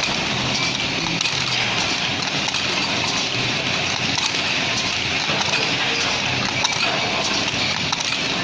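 CNC metal-spinning lathe at work: a steady, even hiss with a few light clicks.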